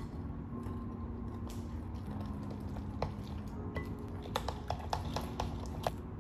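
A metal utensil stirring batter in a glass mixing bowl, with a quick run of light clinks against the glass in the second half, over soft background music.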